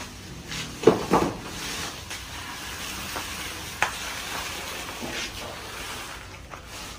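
A heavy sack being handled, with rustling and two sharp knocks about a second in as it is picked up and moved, over a steady hiss.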